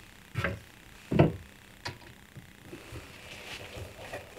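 A metal full-extension drawer slide being handled and set against a wooden riser block inside a plywood cabinet: three short knocks, the loudest about a second in, then faint scraping and rustling as it is held in place.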